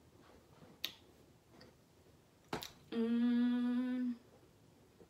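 A woman hums one steady closed-mouth "mmm" for just over a second, about three seconds in, holding a single pitch. A couple of faint clicks come before it.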